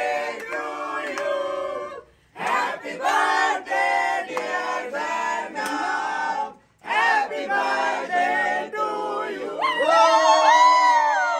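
A group of men and women singing and chanting together in three stretches, ending in a high drawn-out cheer near the end.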